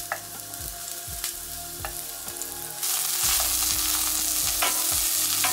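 Sliced onions sizzling in hot oil in a frying pan, stirred with a wooden spoon that knocks and scrapes against the pan. The sizzle gets louder about three seconds in.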